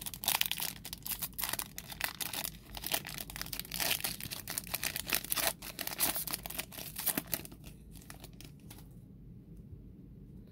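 Foil trading card pack being torn open and crinkled by hand: a dense, crackling rustle of foil that dies away about eight seconds in.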